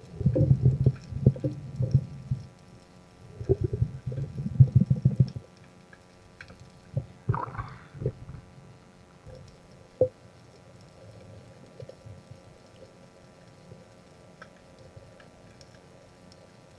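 Underwater sound heard through an action camera's waterproof housing: two spells of low, dull water-movement and handling noise in the first five seconds, then quieter with a few sharp clicks and a brief rising swish.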